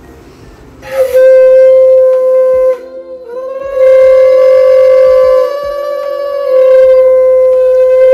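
Conch shell (shankha) blown in loud, steady blasts of one held note. A short blast comes about a second in, then a long one that eases and swells again.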